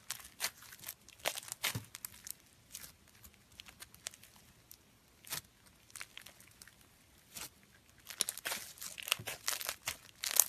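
Slime being squeezed and worked by hand, giving irregular short crackles and pops, with a dense run of them about eight seconds in.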